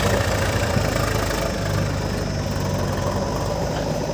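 Eicher 380 tractor's diesel engine running steadily as it pulls a trolley loaded with mud.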